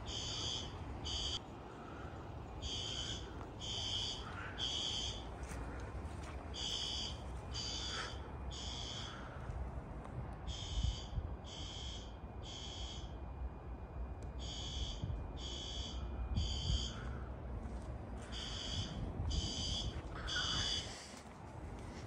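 Fire alarm horns sounding the evacuation signal in a temporal-three pattern: three short high-pitched blasts, a pause, then again, repeating. Several horns sound in sync, over a low wind rumble.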